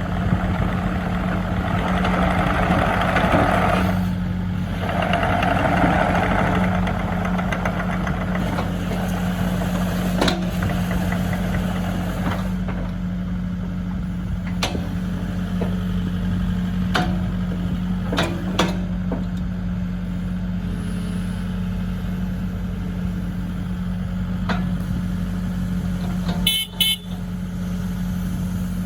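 Takeuchi TB290 excavator's diesel engine running steadily, with two stretches of louder rushing noise in the first few seconds. Scattered sharp clicks and clanks follow, and a brief high beep comes near the end.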